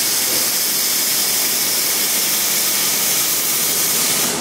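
Grinder grinding metal, a steady loud hissing rasp.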